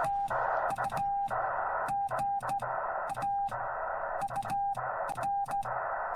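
Morse code from a Yaesu FT-891 transceiver: a single steady tone keyed on and off in dots and dashes, over a band of receiver hiss. It is sent by hand on a straight key, with a sharp click at each element.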